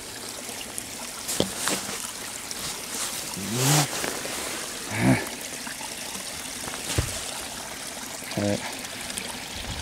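Shallow water trickling across a flooded, muddy trail, with a few short knocks and three brief wordless vocal sounds. Near the end a plastic bottle is pushed down into the muddy water to fill it.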